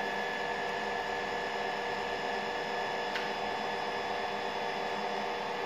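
Compression testing machine running steadily: an even mechanical hum with a thin, high steady tone over it, the sound of its hydraulic pump unit.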